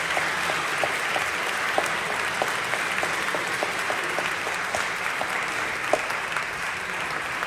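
Audience applauding, with one clapper standing out at a steady three to four claps a second. The applause eases off slightly toward the end.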